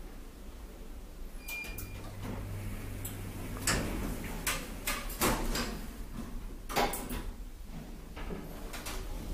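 Sliding doors of a 1993 Tepper diagonal traction glass elevator closing: a brief high tone with a few clicks, a low steady hum from the door motor, then a run of clicks and knocks as the door panels slide shut.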